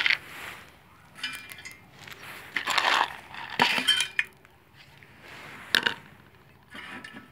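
Handling noise: scattered short clinks and rattles, with a sharp click about six seconds in.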